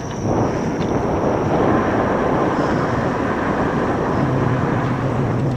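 Wind rushing over the microphone of a moving electric bike, with a faint high whine in the first half and a steady low hum joining about four seconds in.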